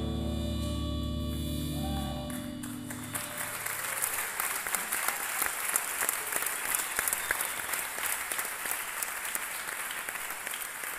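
A band's last sustained chord rings and dies away over the first couple of seconds. From about three seconds in, an audience applauds.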